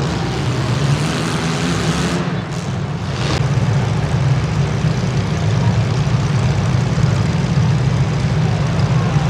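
Several compact demolition-derby cars' engines running together, a steady low rumble.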